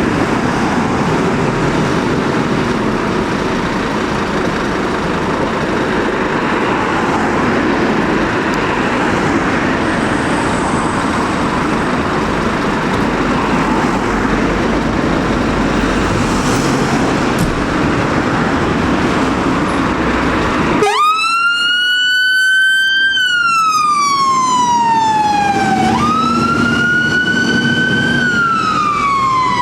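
A loud, steady rushing noise with no clear tone, which cuts off abruptly about two-thirds of the way through. A fire engine's electronic siren then wails, sweeping up and slowly down twice, about five seconds per cycle.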